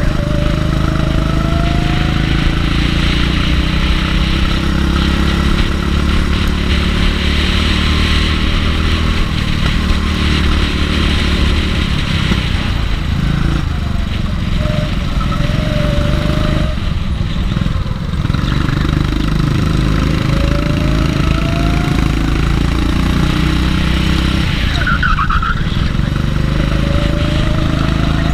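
Rental go-kart's single-cylinder engine running hard on a lap, its pitch climbing each time it accelerates out of a corner and falling back as it lifts and brakes, about four times in all. A brief high squeal cuts in about 25 seconds in.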